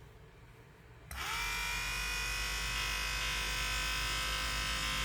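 Restored 1967 Cadillac rear window vent motor switched on about a second in and running steadily under power in the extension direction, a smooth even whine from its rewound electric motor and worm gear.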